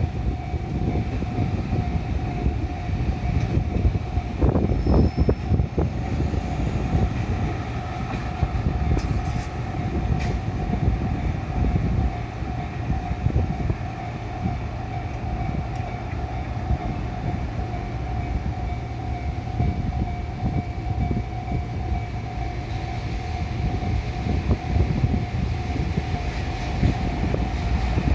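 Japanese level-crossing alarm ringing steadily while a freight-line locomotive running without wagons passes, its engine and wheels rumbling low.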